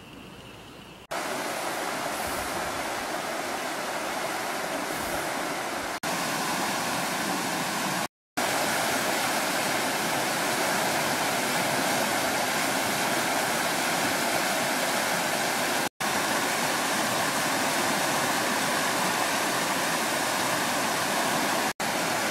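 Muddy river in flood after heavy rain, its high water rushing and churning over rapids in a loud, steady rush. The rush starts suddenly about a second in and breaks off briefly a few times.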